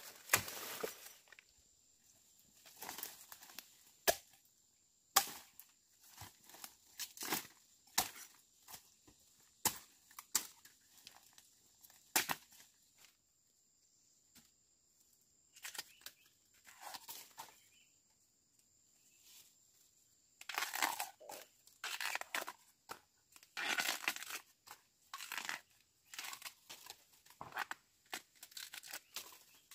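Plant material being torn, snapped and rustled by hand in irregular bursts, with sharp clicks between them; the work is busiest about twenty to twenty-five seconds in.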